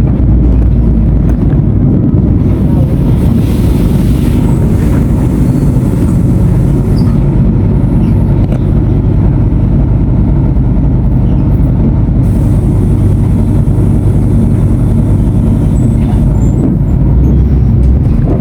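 Mercedes-Benz OF-1519 BlueTec 5 bus's diesel engine running steadily with a loud, low drone.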